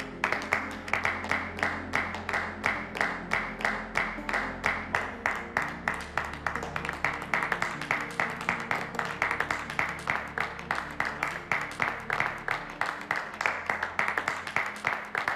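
A group of people clapping in a steady, even rhythm, about four claps a second, over background music with sustained low chords.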